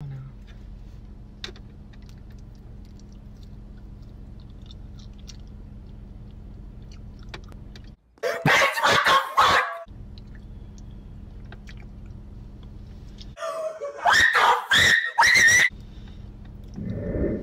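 Faint chewing of honeycomb, small wet ticks over a steady low hum. It is broken twice by a loud inserted voice clip, about 8 seconds in and again about 13 seconds in.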